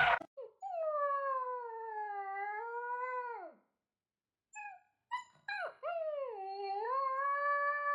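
A dog howling: two long, wavering howls of about three seconds each, with a few short yips between them.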